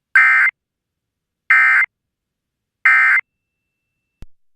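Emergency Alert System end-of-message signal: three short bursts of SAME digital data tones, each about a third of a second long, about a second and a half apart, marking the end of the alert message. A short click follows near the end.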